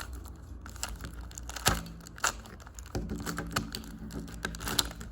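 A plastic 3x3 Rubik's cube being turned by hand: irregular clicks and clacks as its layers are twisted, here while building the white cross.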